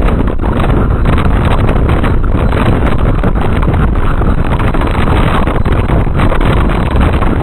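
Loud, steady wind buffeting the microphone over the running noise of a moving train.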